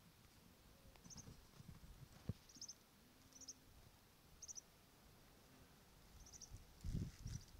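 Faint high chirps repeated about six times at uneven intervals, each a quick run of three or four pulses, from a small animal calling outdoors. A few soft low thumps come in about a second in and again near the end.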